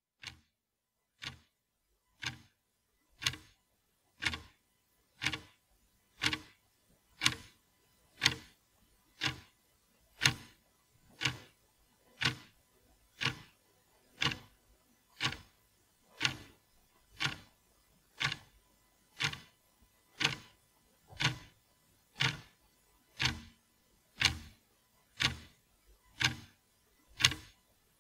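A sharp, clock-like tick once a second, as steady as a metronome. It starts faintly and grows louder over the first several seconds, then holds.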